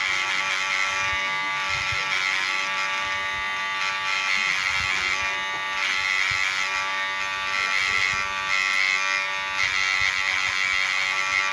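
KIKI cordless hair clipper running steadily with a constant electric buzz, its freshly sharpened blades cutting back and forth.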